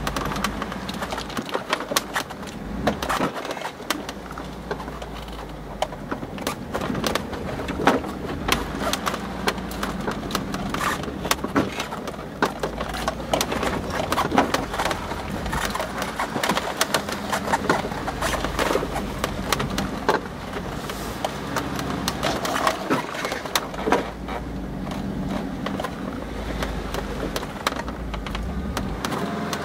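Off-road vehicle driving over rough ground: the engine runs under a steady low rumble, with constant irregular rattling and knocking.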